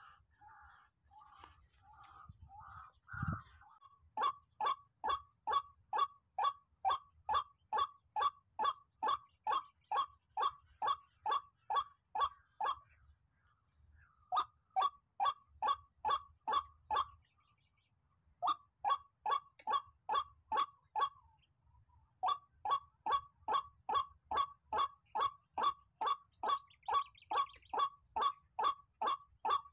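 Barred rail (tikling) calling: a fast, even series of short, falling notes, about two a second, that starts about four seconds in and stops briefly three times before carrying on.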